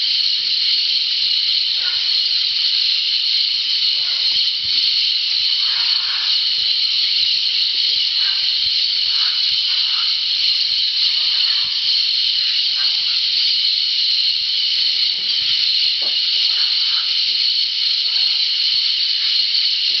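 Steady high-pitched insect drone of the Amazon rainforest, with faint, scattered squawks of parrots coming and going at a clay lick.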